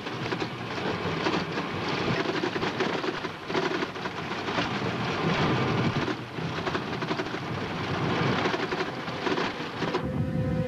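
Loud, steady rushing and rumbling noise, as in a jet aircraft cockpit in flight, dipping briefly about three and a half and six seconds in. Steady held tones come in near the end.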